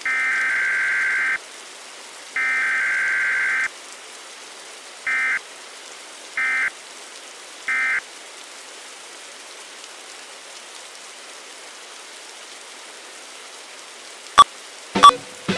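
An electronic buzzer tone sounds in two long blasts of about a second and a half, then three short beeps, over a steady hiss. Near the end come a few sharp clicks.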